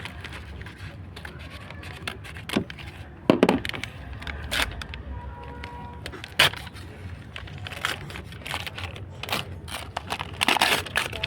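Packaging being handled and opened: irregular crinkling, rustling and sharp clicks, the loudest about three and a half and six and a half seconds in, over a steady low rumble.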